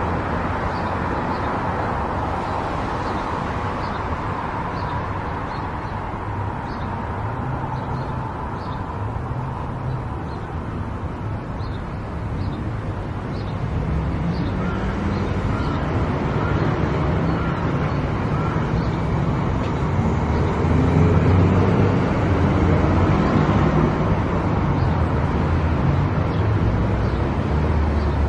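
A car driving on the road: steady road and engine noise, with the engine note stronger and the sound louder in the second half. Faint short high ticks recur in the first half.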